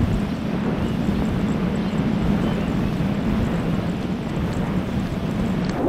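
Battery-powered electric motor and propeller of an RC fixed-wing plane in flight, heard from the onboard camera: a steady low drone under a constant rush of air.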